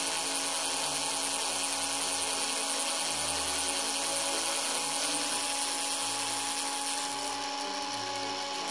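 Cordless screwdriver running steadily at low speed, turning a thin twist bit held in a keyless hex-shank drill chuck adapter as it drills through a thin wooden stick.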